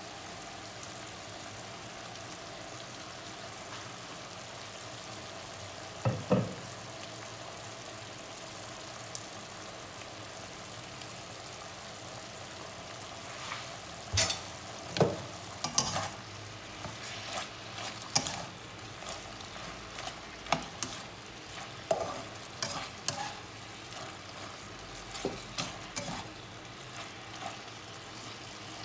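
Beef pieces sizzling steadily in a non-stick frying pan. There are two sharp knocks about six seconds in, and through the second half a spatula scrapes and stirs the meat with many short strokes.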